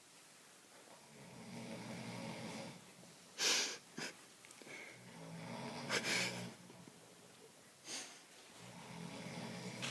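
A person snoring with a rumbling, motorcycle-like sound: low rattling snores come about every three seconds, broken by short sharp snorts that are the loudest sounds.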